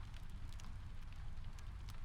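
Rain and fireplace ambience: a steady low rumble under a soft hiss, with scattered small sharp crackles and ticks.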